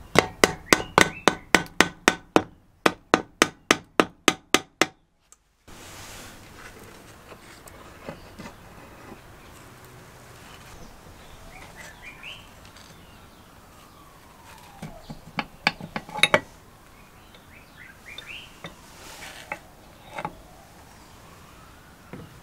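Rapid hammer taps on the small Briggs & Stratton engine's crankcase cover, about four a second for roughly five seconds, then stopping suddenly. Later there is a short cluster of sharp metallic clicks as the reduction-gear parts inside are handled.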